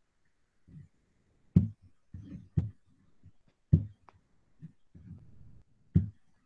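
Computer mouse clicking close to the microphone: four sharp clicks, each with a dull thump, the first three about a second apart, with faint rustling between them.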